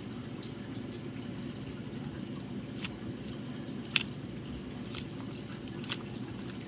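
Green rubber squish ball squeezed and kneaded in the hands close to the microphone, giving a few sharp squelching clicks about a second apart in the second half, over a steady low hum.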